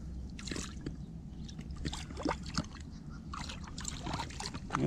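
Shallow lake water sloshing and splashing around a bream held in it by hand for release, with a cluster of sharper splashes near the end as the fish moves at the surface.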